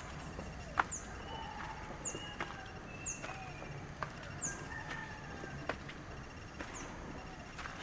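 Footsteps on a concrete and stone path, irregular sharp steps about once a second. Behind them a bird repeats a short, high, falling chirp about once a second, with a few faint whistled calls.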